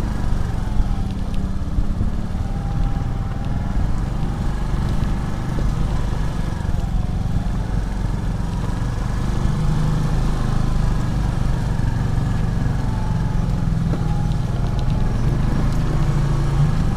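Small motor scooter's engine running as it rides slowly, a steady low rumble with a faint whine that rises and falls in pitch.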